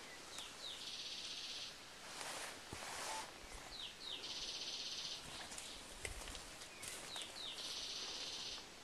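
A small bird singing a repeated phrase three times, about three seconds apart: two short falling high notes, then a high buzzing trill lasting about a second. A brief rustle of vegetation comes between the first and second phrases.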